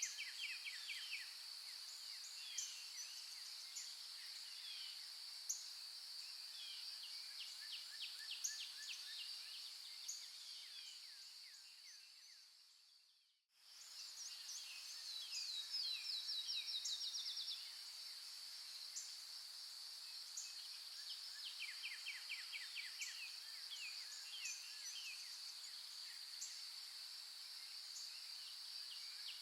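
Small birds chirping and trilling over a steady high-pitched insect drone. About 13 seconds in, the whole sound fades out to silence and quickly fades back in, followed by a loud, fast trill.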